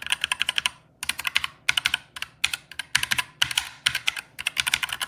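Typing on a Redragon K617 Fizz 60% hot-swap mechanical keyboard: fast runs of very clicky keystrokes, broken by a short pause about a second in and another near the end.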